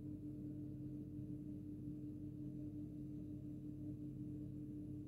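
Faint steady hum with one clear held tone above it, unchanging throughout.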